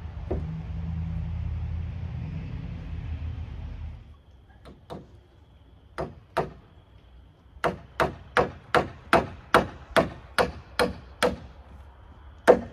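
Hammer nailing into timber: a few light taps, then about ten sharp, even blows at roughly two and a half a second, and one more strike near the end. Before the hammering, a low steady rumble stops about four seconds in.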